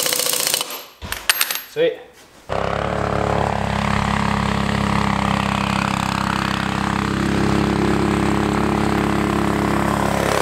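An impact wrench runs briefly on the go-kart wheel's lug nuts, then a few sharp clicks. About two and a half seconds in, the Predator 212 single-cylinder engine, fitted with an aftermarket header, muffler and intake, runs steadily as the off-road go-kart drives.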